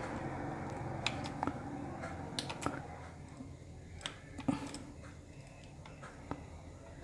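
Scattered light clicks and taps of electrical wires and a plastic plug socket being handled and fitted, over a low background hum that fades after about three seconds.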